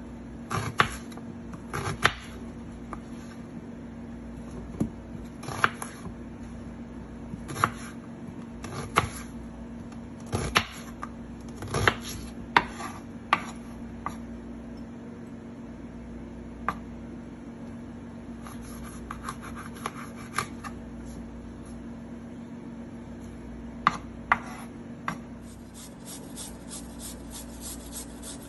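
Scattered sharp knocks and clinks of kitchen work at irregular intervals, over a steady low hum.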